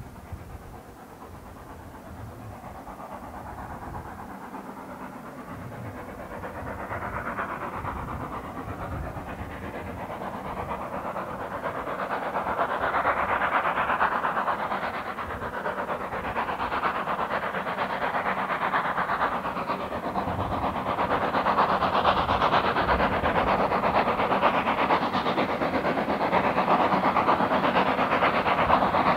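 Steam tank locomotive hauling a rake of coaches approaching along the line. Its exhaust and the running of the train grow steadily louder throughout, with the sound swelling and ebbing as it comes.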